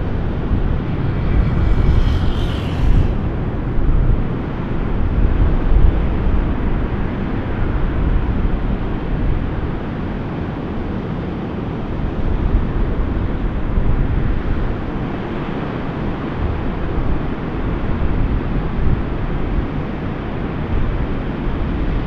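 Ocean surf breaking as a steady low rush, with wind buffeting the microphone. A brief, faint higher-pitched sound comes about two seconds in.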